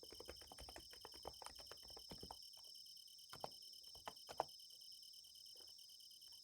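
Faint typing on a Niz Plum x108 electrostatic capacitive keyboard: a quick run of keystrokes for about two seconds, then only a few scattered key presses. Under it, night insects sing steadily throughout.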